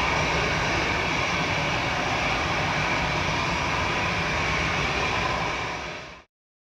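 A Dassault Falcon 2000 business jet's twin CFE738 turbofan engines running as the jet moves away down the runway. The jet rumble carries a steady high whine and eases off slowly, then cuts off about six seconds in.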